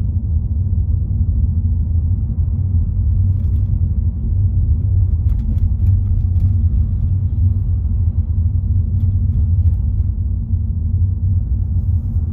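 Steady low rumble of a car driving, engine and road noise, with a few faint clicks partway through.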